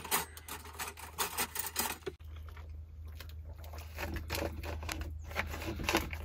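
Knife and fork clicking and scraping on a ceramic plate while a burger is cut, with small knocks of things being handled and a steady low hum underneath.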